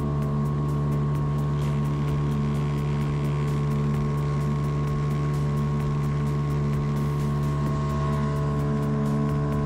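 A motor yacht's marine diesel engine running steadily at constant speed.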